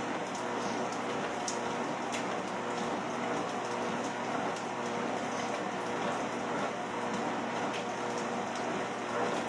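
Used treadmill running steadily under a walker: a continuous motor hum with an even hiss of belt noise.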